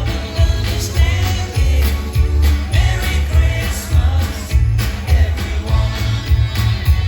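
Upbeat pop song with a singing voice over a heavy, steady bass beat.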